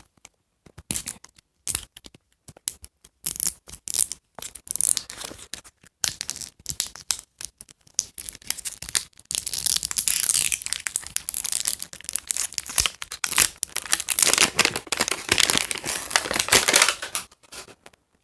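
Plastic wrapping of an LOL Surprise Glitter Globe ball being torn open and crinkled by hand, in irregular rustling bursts that grow denser and louder about halfway through.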